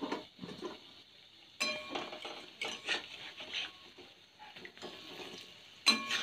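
A metal utensil scrapes and knocks against a metal kadai while besan fritters are turned over in hot oil, with a few sharp clanks that ring briefly. The oil sizzles steadily underneath. The loudest clank comes just before the end.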